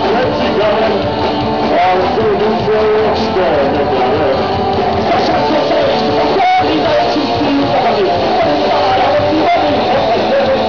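Rock band playing live: electric guitars, bass and drums, loud and continuous.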